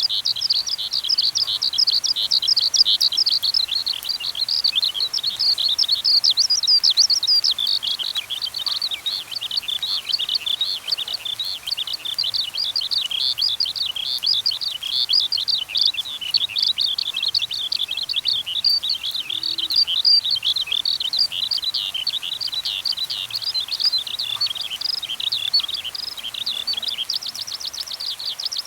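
Songbird singing a long, unbroken, rapid twittering song with high notes that tumble up and down. Near the end the song turns into a faster, more even trill.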